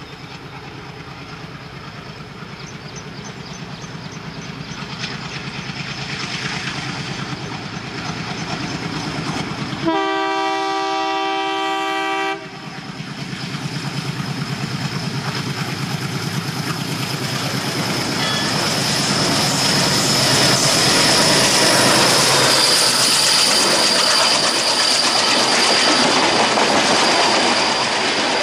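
An ALCO-built WDM-class diesel locomotive approaches with its engine running, growing steadily louder. Its horn sounds once for about two and a half seconds, around ten seconds in. Then the coaches pass close by, their wheels rattling rapidly over the track, which is the loudest part.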